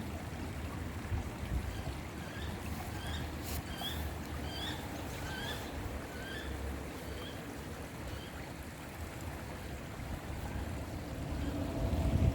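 Small stream trickling and flowing over rocks, a steady rushing hiss. A bird sings a run of about ten short chirps in the middle, and a low steady hum comes in near the end.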